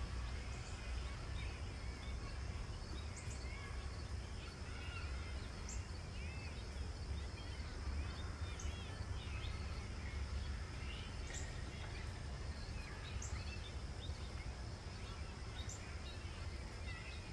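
Outdoor yard ambience: many small birds chirping and twittering, with a short high chirp repeating every couple of seconds. A steady low rumble and a faint steady high tone run underneath.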